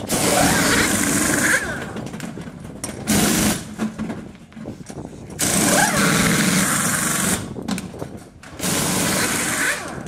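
Pneumatic wheel guns (air impact wrenches) rattling in four bursts of half a second to two seconds as pit crews undo and tighten the wheel nuts during a race-car tyre change.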